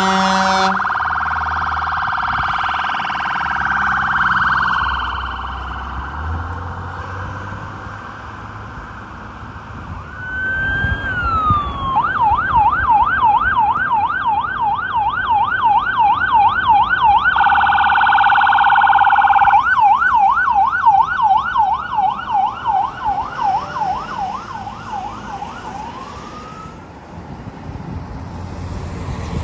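Fire truck sirens on a response: an air horn blast cuts off right at the start and a siren fades over the first few seconds. About ten seconds in a siren swoops up and goes into a fast yelp, switches for a couple of seconds to a quicker piercing tone, returns to the yelp and winds down near the end.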